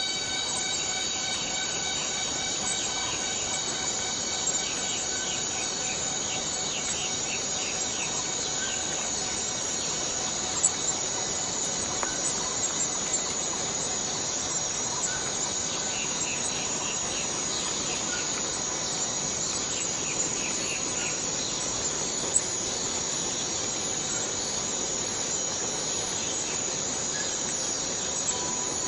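Cicada chorus: a dense, steady high-pitched buzz, with a few brief faint ticks around the middle.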